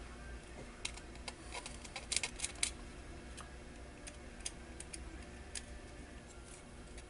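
Light, irregular clicks and taps of small hand work on an electronics circuit board, a few in quick succession about two seconds in, over a faint low hum.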